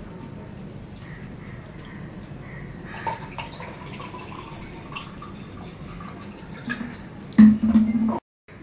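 Fingers scraping leftover food around a stainless steel plate, with faint wet clicks and smacks. Near the end comes a louder sound with a low steady pitch lasting under a second as the mouth comes down to the plate, and then the sound cuts off abruptly.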